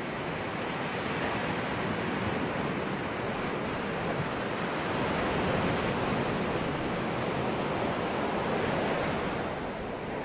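Ocean surf washing onto a beach: a steady rush of breaking waves that swells gently and begins to fade out near the end.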